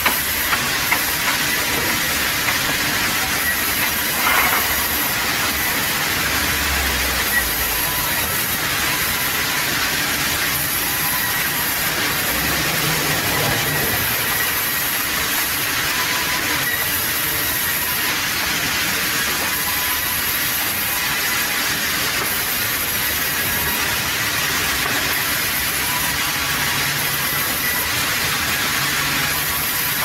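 Sawmill band saw running and cutting a log into slabs: a steady noisy din with a faint high whine, and a few short wooden knocks in the first few seconds as the wood is handled.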